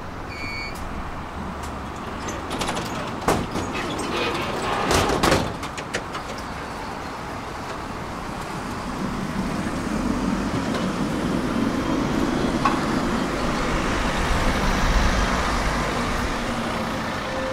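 Tram running, with a brief high beep at the start and a few sharp clicks and knocks a few seconds in. About halfway through, a low hum comes in and grows louder.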